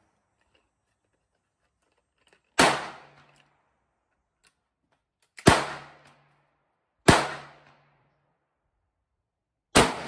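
Four sharp shotgun reports from a .410 break-action single-shot firing rifled slugs, a second and a half to three seconds apart, each ringing off briefly. A fifth shot follows right at the end.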